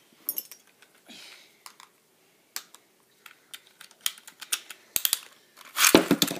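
Light plastic clicks and taps as a Beyblade top is handled and set on its launcher, then near the end a loud, quick ratcheting rattle as the ripcord is pulled and the spinning top drops into the plastic stadium.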